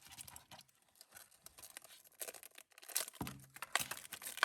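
Faint crinkling and clicking of a toy car's plastic blister pack and cardboard backing being handled. It is near silent at first, and the handling noises start about two seconds in and grow busier near the end.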